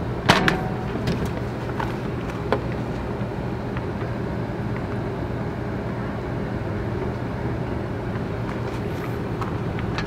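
Sharp clicks and knocks of the trailer's water heater access panel and its hardware being handled, the loudest just after the start and three lighter ones over the next two seconds, over a steady low hum.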